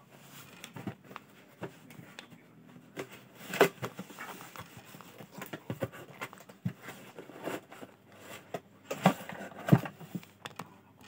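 A cardboard box being opened by hand: flaps rustling and scraping, with scattered clicks and a few sharp knocks as a plastic VR headset is taken out and handled. The loudest knocks come about a third of the way in and again near the end.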